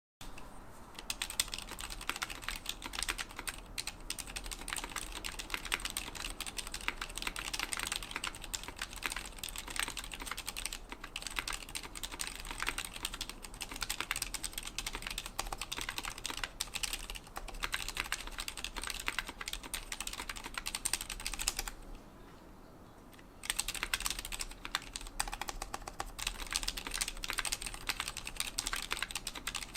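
Continuous fast typing on a 60% mechanical keyboard with lubed Cherry MX Silent Red linear switches, PBT keycaps and an aluminium case and plate: a dense run of soft, damped key strikes. The typing stops briefly, for about a second and a half, a little past two-thirds of the way through.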